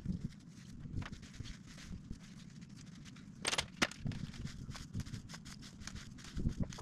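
Scattered knocks and clicks from a metal stepladder as a man steps up onto it, the two sharpest about three and a half seconds in, over a low steady background rumble.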